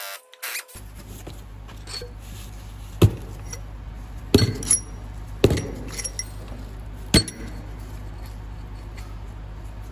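Hard metal engine parts being handled: several sharp clinks and knocks with a short metallic ring, spread over a few seconds above a steady low hum.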